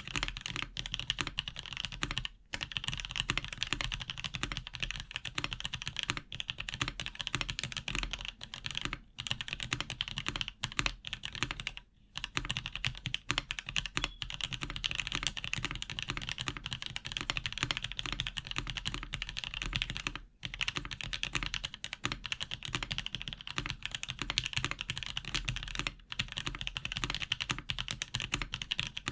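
Continuous fast typing on a Hello M0110 gasket-mount mechanical keyboard with lubed Box Cream linear switches and PBT keycaps, built without plate foam or case foam. Dense key clacks with a few brief pauses.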